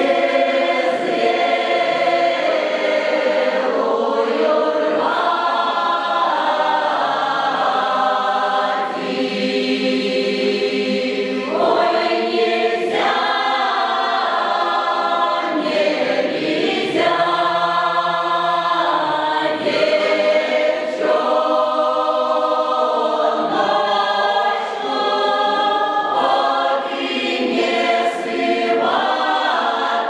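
Mixed folk choir of women's and men's voices singing a Russian folk song, in several voice parts and loud throughout.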